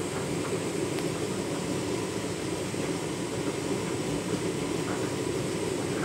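Candy front-loading washing machine running its wash tumble: a steady rumble of the turning drum and the suds-laden wash load inside.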